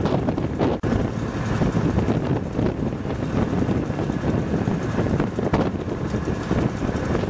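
Strong blizzard wind blowing hard across the microphone, a loud, dense rushing rumble that swells and eases in gusts.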